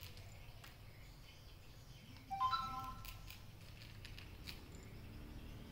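Kitten eating dry cat kibble from a plastic tray, with faint scattered crunching clicks. About two seconds in there is one brief high ringing chime that fades within half a second.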